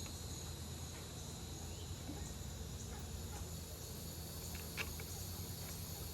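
Steady high-pitched insect chirring over a steady low hum, with a faint click or two about five seconds in.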